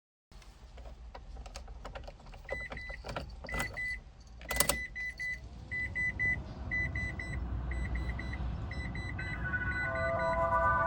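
Irregular clicking and clattering over a low rumble, with one loud click midway. Through the second half a high electronic beep repeats in quick groups of two or three, and music tones come in near the end.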